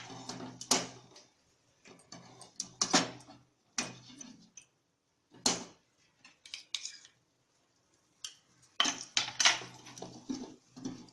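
Spoon scraping and knocking against a pan in short, irregular bursts of strokes, stirring flour as it roasts in ghee.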